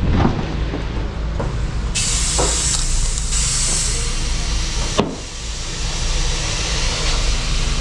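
Compressed air hissing through a tyre inflator chuck into a newly fitted tubeless scooter tyre, starting about two seconds in, with a sharp knock about five seconds in and a steady low hum underneath.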